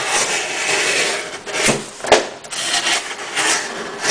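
Dull S30V blade of a Leatherman Charge TTi dragging and rasping through cardboard in repeated strokes, with a sharp click a little past halfway. The blade is dull and really hard to push through.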